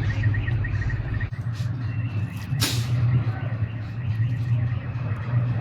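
Steady low machine hum, with a short sharp hiss a little under three seconds in.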